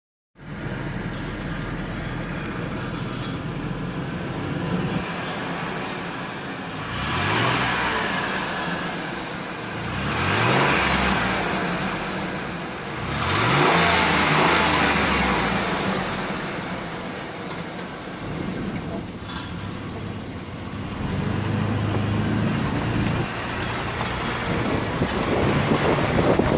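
2003 Ford E150 van's V6 engine idling and revved briefly three times before settling again, with a strange knocking noise that the owner and local shops cannot identify, and rattle the owner puts down to a loose exhaust heat shield.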